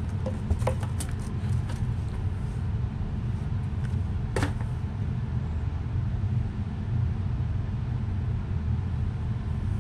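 Steady low background hum with a few light clicks, the sharpest about four and a half seconds in.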